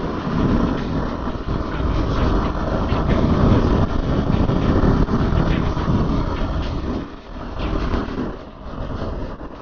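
Kawasaki KFX 400 quad's single-cylinder four-stroke engine running under throttle while riding. Its sound dips briefly twice near the end.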